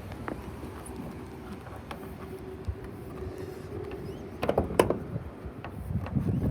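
Handling noise from someone moving about inside a car: scattered clicks and knocks over a faint steady hum, with a cluster of louder knocks about four and a half seconds in and more rustling and knocking near the end.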